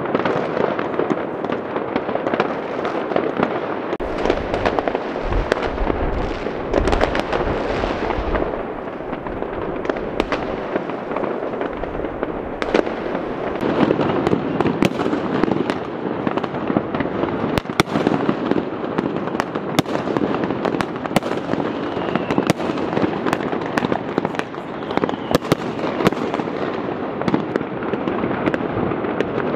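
Consumer fireworks going off all over a city at once: a continuous din of crackling and booming, with frequent sharp firecracker bangs. A deep rumble joins in about four seconds in and fades a few seconds later.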